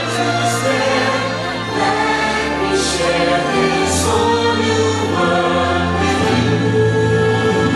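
Fireworks-show soundtrack: orchestral music with a choir singing long held notes over a steady bass line.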